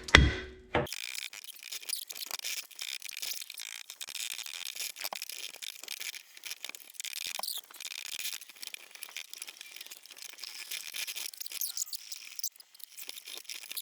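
One hammer blow on a seized brake rotor right at the start, then faint metallic scraping and light clinking as the rusted rotor is worked loose from the hub.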